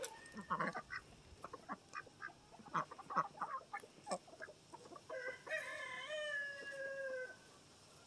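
Farmyard poultry: a run of short calls and clucks, then a rooster crowing once, a single drawn-out call of about two seconds starting about five seconds in that sags slightly in pitch toward its end.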